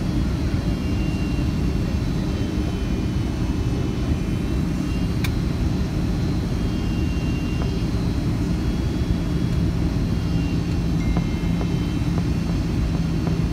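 Cabin noise of a Boeing 757-200 on final approach, heard from a seat over the wing: the turbofan engines and the rushing air give a steady rumble with a faint high whine. A low hum in it grows stronger over the last few seconds.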